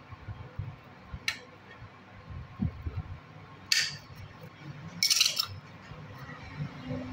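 Old copper winding wire being pulled and cut out of a monoblock pump motor's stator with pliers: metallic clinks and handling knocks, with a few short scratchy rasps. The loudest rasp comes about five seconds in.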